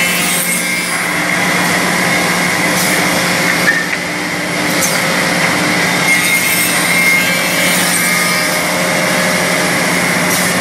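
Two-head CNC tenon milling machine running as it machines wooden parts: a steady motor hum under a continuous whirring cutting and brushing noise, with a few short clicks.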